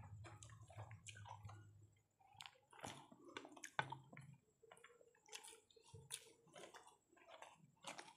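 Faint sounds of eating biryani by hand: fingers squishing and mixing rice on the plates, and chewing, as a string of short, irregular wet clicks and squelches.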